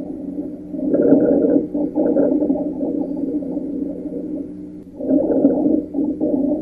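Rhonchi: low-pitched, snoring-like lung sounds in a chest auscultation recording, a sign of obstruction in the large airways. The sound grows louder about a second in and again about five seconds in, following the breathing.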